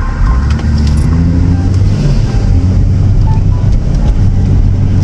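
Car driving, its engine and road noise making a loud low rumble, with the engine pitch rising as it pulls away over the first couple of seconds.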